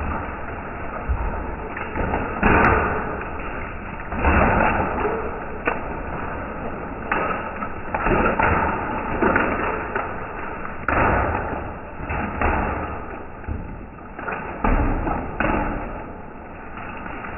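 Hailstones and rain striking a concrete patio, heard slowed down: a continuous rough patter with irregular, drawn-out heavier impacts every second or so.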